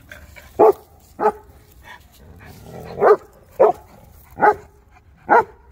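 Turkish Kangal dog barking: six short, separate barks, irregularly spaced.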